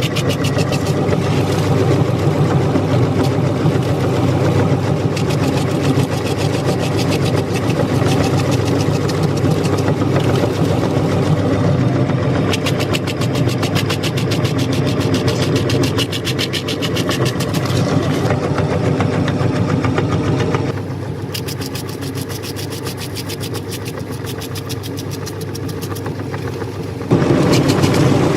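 Electric meat grinder motor running steadily while crunchy cookie is crushed through it, with a dense crackling over the hum. The sound drops lower about 21 seconds in and comes back up about 27 seconds in.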